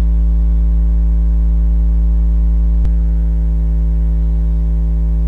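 Steady electrical mains hum with a buzzy edge, a low drone carrying a ladder of evenly spaced overtones, with one faint click nearly three seconds in.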